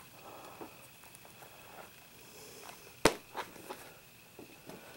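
A hardcover book being handled over a wooden display case: faint rustling, then one sharp knock about three seconds in, followed by a few light taps.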